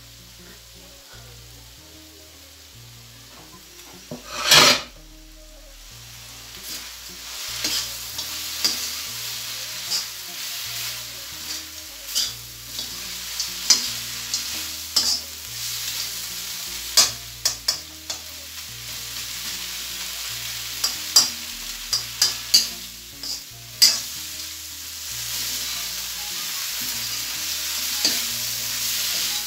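Goat meat frying in a metal wok, sizzling, while a metal spoon stirs it, scraping and clicking against the pan many times. About four seconds in there is a brief loud burst of noise. The sizzling is louder from about six seconds on.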